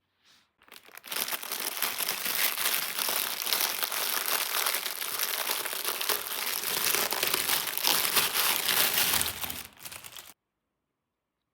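Toy packaging crinkling continuously as it is handled and unwrapped, for about nine seconds, then stopping suddenly.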